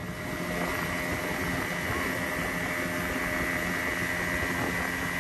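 Outboard motor of a small open boat running steadily at speed, a constant drone with a rush of water and air along the hull.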